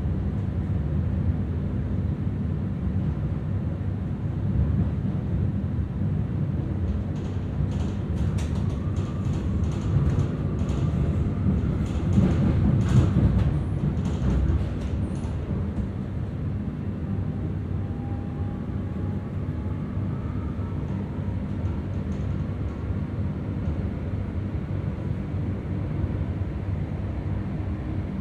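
Commuter train running along the line: a steady low rumble that swells briefly about twelve seconds in, with a cluster of clicks and rattles around that swell.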